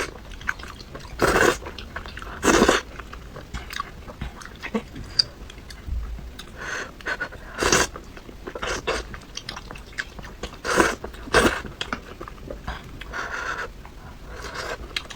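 Close-miked eating of sticky malatang noodles from a small pot: wet chewing and biting with small clicks, broken by about five louder short bursts of noise.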